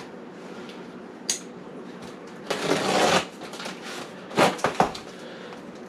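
A box and its packaging being opened and handled: a click, a rustling scrape about two and a half seconds in, then a few sharp knocks.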